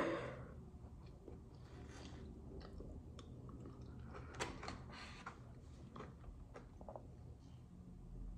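Faint close-up chewing and eating sounds of a mouthful of hard-frozen ice cream, with scattered small clicks and ticks.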